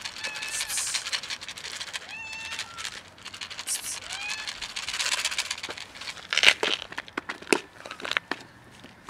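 Tabby cat meowing several times over the rustle of a plastic food container being handled. In the second half come a few sharp plastic clicks and knocks as the container is set down on concrete and its clip-lock lid is worked open.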